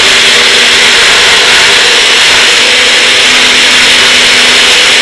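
Personal blender running steadily at full speed, its motor whirring and the blades churning red wine into a froth to aerate it. Loud, with a constant hum under the rush of the blades.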